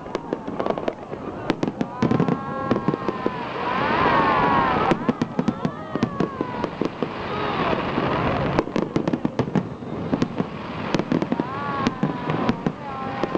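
Fireworks bursting in a rapid series of bangs and crackles, with spectators' voices calling out among them.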